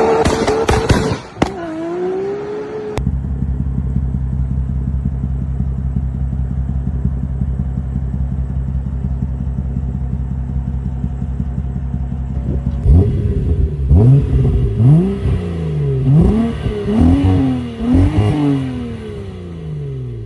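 BMW M4 F82's twin-turbo inline-six through a full aftermarket exhaust with a straight equal-length mid-pipe and a valved axle-back. A rev dies away in the first second, followed by a short blip. The engine then idles steadily for about ten seconds, and from about two-thirds of the way in the throttle is blipped in several quick revs.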